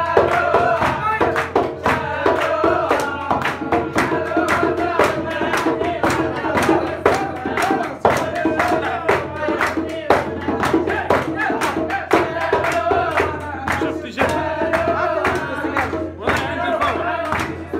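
A man singing in a tarab style, with wavering, ornamented melody lines, while a group claps a steady rhythm.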